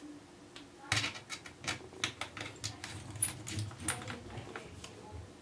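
A quick run of light clicks and taps as a small metal tool and fingertips work over the tablet's aluminium back casing, pressing the little rubber stoppers back over the screw holes. Sharpest clicks about a second in and again halfway through.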